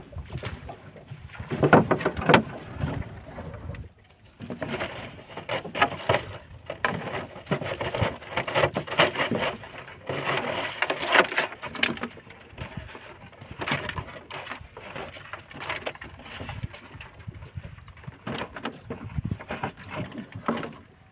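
Irregular rustling, knocking and clatter of collapsible net crab traps being hauled and handled in a small boat, with the catch of crabs and a horseshoe crab shaken out of the netting into a plastic tub. A short lull about four seconds in.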